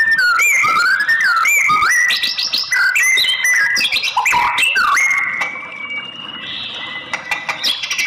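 White-rumped shama singing a fast, varied song of whistled notes that glide up and down, with short sharp clicks among them. The song eases off and grows softer for a couple of seconds near the end.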